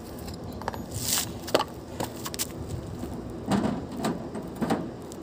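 A few footsteps scuffing on gritty, debris-strewn concrete, with scattered small clicks between them.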